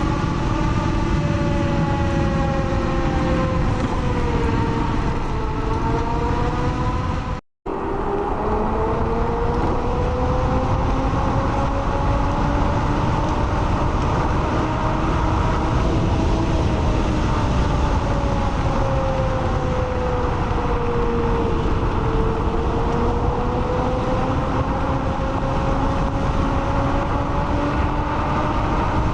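Blade 10 electric scooter being ridden: a whine from its hub motors that rises and falls slowly with speed, over heavy rumbling road and wind noise. The sound drops out briefly about seven seconds in, at a cut between clips.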